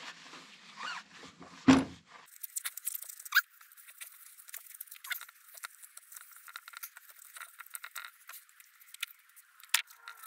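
Polishing cloth rubbing and squeaking against a polished aluminium motorcycle wheel hub as it is buffed by hand, in many short strokes. A single heavy thump comes just under two seconds in.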